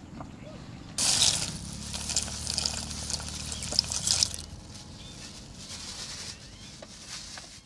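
Dry macaroni poured from a rustling plastic bag into a pot of hot broth, with crackling and splashing. It starts suddenly about a second in and stops about three and a half seconds later.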